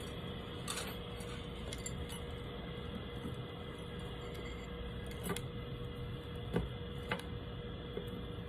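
Small handheld butane jeweller's torch burning with a steady hiss, under a faint steady hum, with a few light clicks from small tools about one, five, six and a half and seven seconds in.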